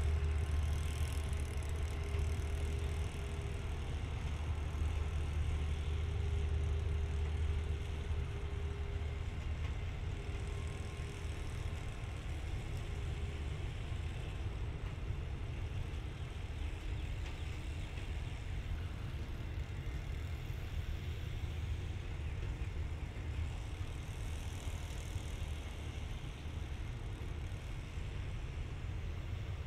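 State Railway of Thailand train's diesel engine idling: a steady low rumble, with a faint steady hum over it for the first ten seconds or so.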